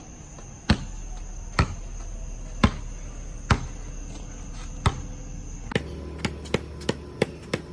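A basketball bouncing on a concrete driveway. It starts as slow single dribbles about once a second, and near the end quickens to about three bounces a second. A steady high chirring of night insects runs behind it.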